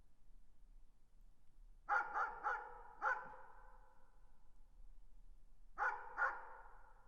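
Dog barking: a quick run of four barks, then two more about three seconds later, each trailing off in an echo.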